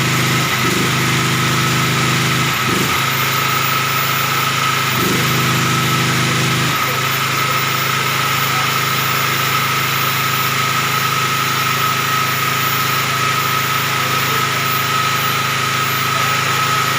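A 7000 W, 9.5 kVA portable generator running steadily, with an even engine note and a steady high-pitched whine. The engine note wavers briefly a few times in the first seven seconds, then holds steady.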